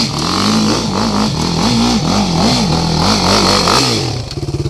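Sport ATV engine revving up and down again and again while the quad is pulled along on a tow strap, then dropping to a steady, pulsing idle near the end.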